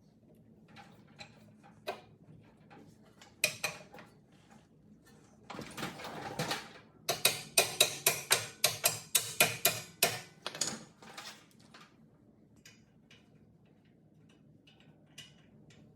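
Metal tool work on the rear suspension: scattered knocks and clicks, a short rasping noise, then a run of sharp ratcheting clicks about four a second lasting a few seconds.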